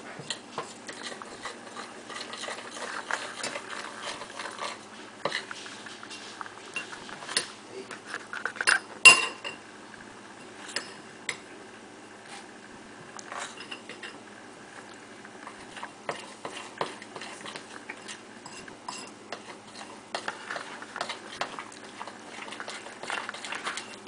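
A spoon stirring thick batter in a bowl, scraping and clinking irregularly against the sides, with a few louder knocks about eight and nine seconds in.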